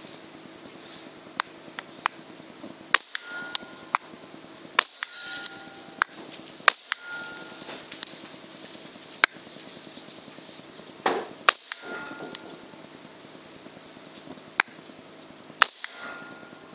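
Hatsan Blitz .22 PCP air rifle fired shot by shot at a weed: a dozen or so sharp cracks, irregularly spaced a second or more apart, with about five standing out as loudest.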